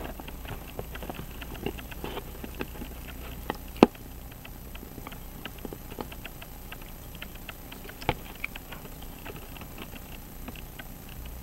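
Small irregular clicks and taps of fingers and metal parts as a Hamilton 916 pocket watch movement is fitted into its case. A sharper click comes about four seconds in and another about eight seconds in.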